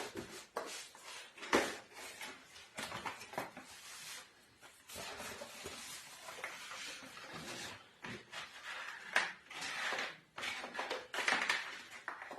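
A cardboard keyboard box being opened by hand and its packaging handled: irregular rustling and scraping with small knocks.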